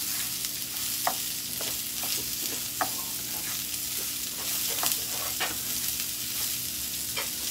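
Dry rice and chopped onion sizzling as they fry in oil in a frying pan, the stage of browning the rice for red rice. A slotted spoon stirs them, scraping and ticking against the pan about once or twice a second.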